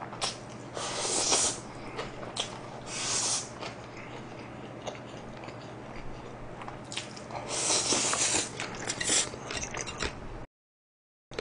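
Spaghetti being slurped and chewed: several hissy slurps of noodles, about a second in, around three seconds, and a longer run from about seven and a half to nine seconds, with wet chewing between them over a low steady hum. The sound cuts out for about a second near the end.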